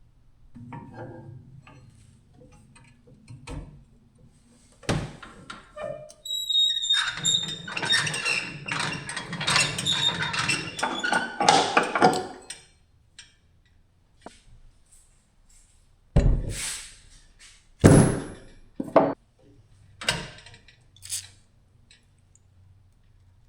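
Metal knocks and thunks from work on a boat trailer's winch and winch stand, with several seconds of continuous clattering and scraping with a high metallic ring in the middle, then single sharp knocks.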